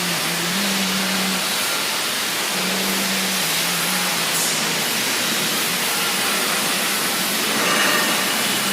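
Gas brazing torch flame hissing steadily while heating a copper tube joint and filler rod, with a faint low hum coming and going underneath.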